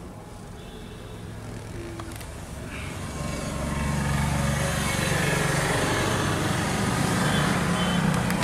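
A motor vehicle engine running steadily, getting louder about three seconds in.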